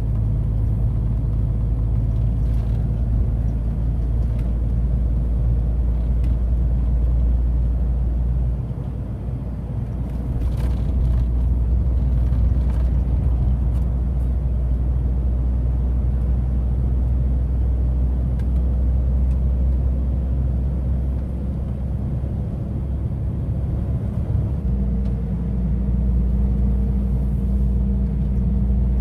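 Heavy truck's diesel engine running steadily while driving, a deep rumble. The engine note drops and changes about 9 seconds in, and again about 25 seconds in.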